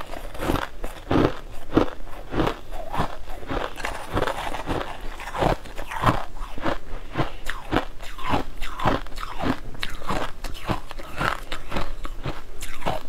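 Crunching and chewing mouthfuls of frozen crushed coloured ice, a rapid, continuous run of crisp crunches several times a second.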